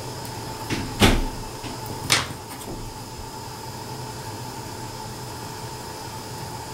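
Hard clicks of a clear resin shell piece and a neodymium-magnet pin being picked up and handled on a tabletop: a faint click, then two sharp clacks about a second apart. A steady background hum runs underneath.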